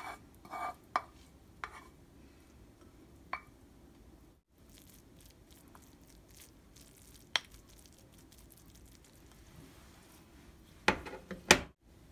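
Wooden spatula and spoon scraping and tapping fried rice out of a non-stick frying pan into a ceramic bowl: a few sharp knocks and clinks with short gaps between, and a louder cluster of knocks near the end.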